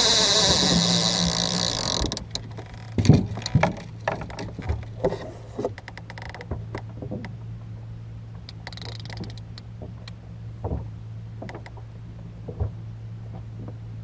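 Conventional fishing reel's bait clicker ratcheting rapidly as a fish, taken for a shark, pulls line off the spool; it stops about two seconds in as the rod is grabbed. After that come scattered knocks and a thump from handling the rod in the boat, over a low steady hum.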